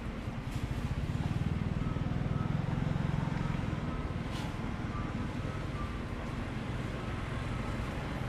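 A motor vehicle's engine running with a steady low rumble.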